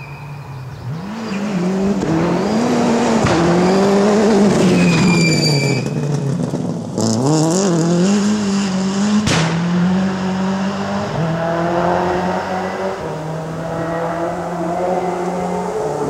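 Peugeot Cosworth rally car at full speed on a gravel forest stage: the engine note climbs and drops through repeated gear changes as it comes through a corner and past, with one sharp crack about nine seconds in. The note then carries on at steadier revs and slowly fades, echoing through the forest.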